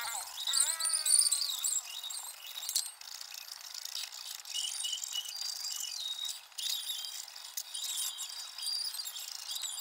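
Hand file rasping along the edge of a steel blade in repeated strokes, a scratchy high-pitched hiss that swells and dips with each stroke.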